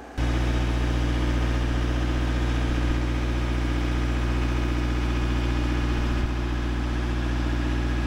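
Engine of a JLG 800AJ articulating boom lift running steadily, heard close up. It starts abruptly just after the start, holds an even level and cuts off just after the end.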